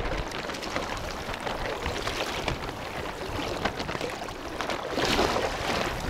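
Sea water splashing and dripping as a gill net is pulled hand over hand out of shallow water, louder about five seconds in.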